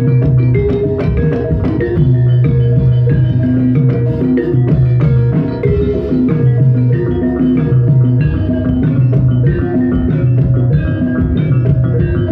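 Javanese gamelan playing jathilan horse-dance music: metallophones struck with wooden mallets in a busy repeating pattern, over drums and deep, ringing low notes.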